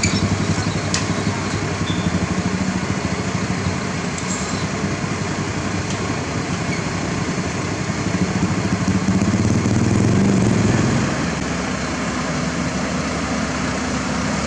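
Diesel engines of heavy road-construction machinery running steadily, with one engine getting louder about eight seconds in and easing off again about three seconds later.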